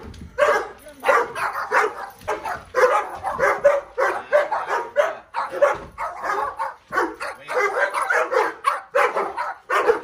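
Excited dogs barking over and over in quick succession, with some whining mixed in.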